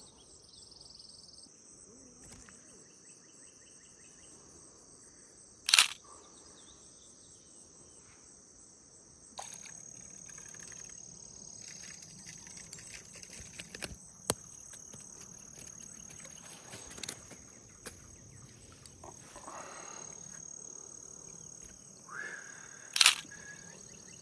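Insects trilling in a steady, high-pitched chorus, broken twice by a loud, sharp knock: once about six seconds in and once near the end.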